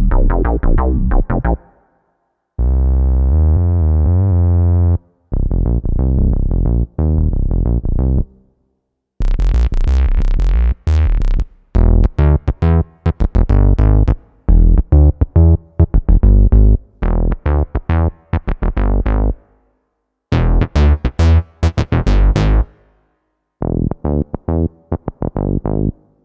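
Roland FA-06/FA-08 workstation playing a run of synth bass patches, one short bass line after another with brief silences between as the sound changes. Some patches have bright, buzzy attacks, others are rounder and duller.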